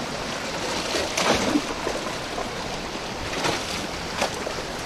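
Sea water washing steadily, with wind on the microphone and a few brief knocks.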